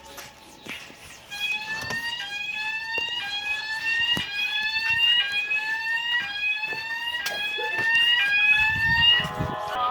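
Fire alarm sounding a repeating rising sweep tone, about one sweep a second. It starts about a second in and stops shortly before the end.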